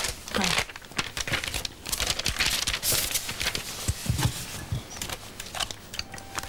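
Rustling and crinkling of paper being handled, with scattered small clicks and knocks of objects being moved about.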